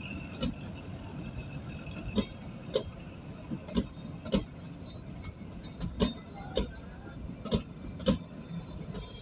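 Kalka–Shimla narrow-gauge toy train running, with a steady low noise and irregular sharp knocks of its wheels over rail joints, about one or two a second.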